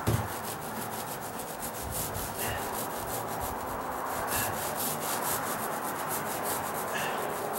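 Paint roller on an extension pole rolling paint over bare, rough OSB deck boards: a steady crackling rub made of fast, even ticks. A low thump comes right at the start.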